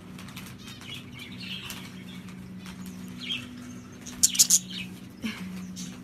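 Budgerigar wings flapping in a short flurry of three quick beats about four seconds in, with a few faint chirps before it. A steady low hum runs underneath.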